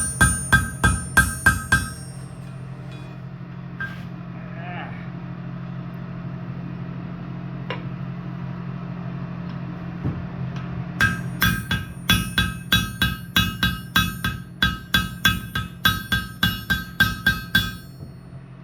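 Hand hammer striking steel on a blacksmith's anvil, each blow ringing, as rivets are hammered over. A short run of blows opens, then a pause with a steady low hum, then a fast run of about three blows a second in the second half.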